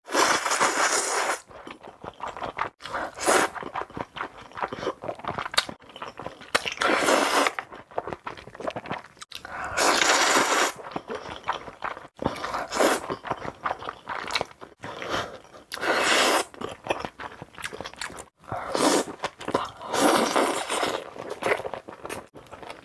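Close-miked eating: loud, long slurps of black bean noodles, coming again and again about a second at a time, with crunchy, wet chewing between them.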